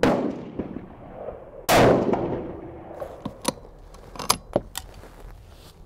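Two gunshots on a covered firing line, about a second and a half apart, the second the louder, each with a long echoing tail. Then several sharp metallic clicks and clinks as the bolt of a 6mm Creedmoor bolt-action rifle is worked.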